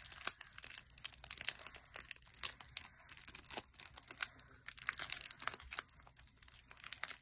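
Clear plastic shrink-wrap around a deck of trading cards crinkling and crackling in irregular sharp clicks as fingers pick at it to tear it open.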